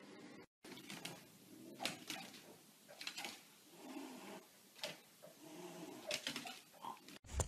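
Faint huffs and snuffles from a pug and a cat squaring off, a few short noisy ones a second or so apart.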